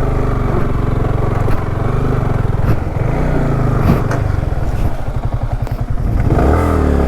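Motorcycle engine running while being ridden, its revs rising and falling, with a few sharp knocks and clatter.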